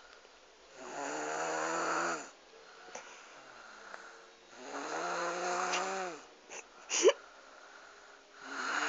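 A young child under three snoring in sleep: three long pitched snores on the in-breath, about three and a half seconds apart, each dropping in pitch as it ends. A brief sharp squeak comes just before the third snore.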